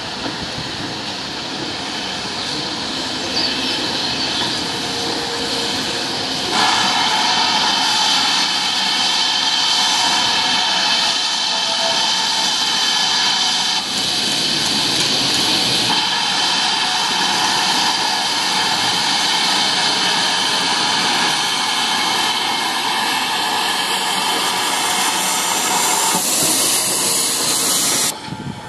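Steam locomotive running into a station and passing close beneath, with a steady loud hiss of escaping steam that jumps louder about a quarter of the way in, then cuts off abruptly near the end.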